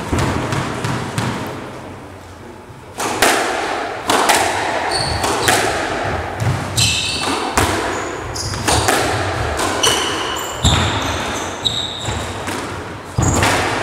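Squash rally: the ball cracks off rackets and the court walls in quick succession, each hit echoing in the enclosed court, with short high squeaks of shoes on the wooden floor. The hitting starts in earnest about three seconds in.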